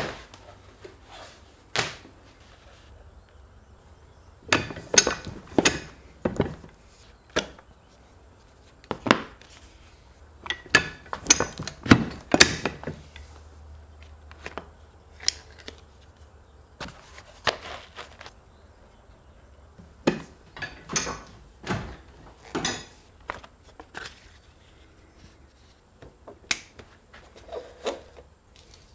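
Leather-workshop handling sounds: sheets of stiff leather rustling and being laid down, and tools and dies clacking on hard work surfaces. The sounds come as scattered taps and knocks gathered in three clusters, with quieter rustling between.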